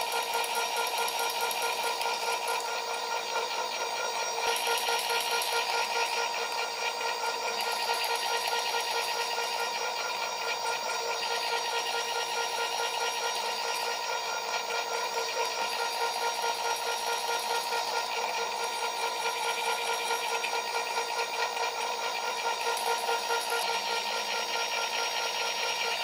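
NEMA 17 stepper motor of a wire stripping and twisting machine, turning its two-blade gripper at a steady speed: a steady whine made of several pitches that holds unchanged throughout.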